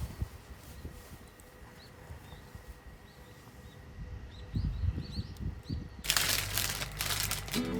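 Faint short bird chirps over quiet outdoor background, with a few low thumps. About six seconds in, a loud rushing noise cuts in, and acoustic guitar music starts right at the end.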